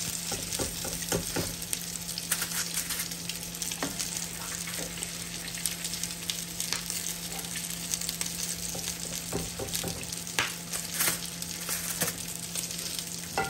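Chicken pieces frying in hot oil in a steel pan, sizzling with a constant hiss and frequent crackles and pops while they are lifted out with a slotted spoon. A steady low hum runs underneath.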